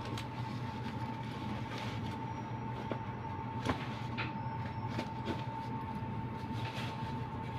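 Steady low hum with a thin constant whine above it, and scattered light clicks and rustles from rummaging in a bag and handling a spoon.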